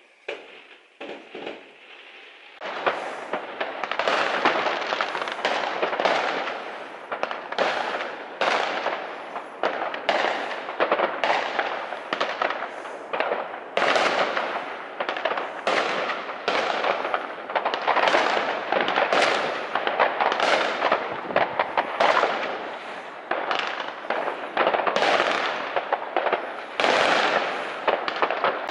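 Fireworks going off: a few scattered pops, then from about three seconds in a dense, continuous run of bangs and crackling.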